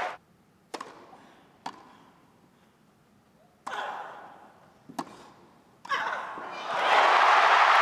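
Grass-court tennis rally in a hushed stadium: sharp pops of racquets striking the ball about three-quarters of a second in, again near 1.7 s and around 5 s, with a player's short vocal grunts on shots. Near the end the crowd breaks into loud cheering and applause as the point is won.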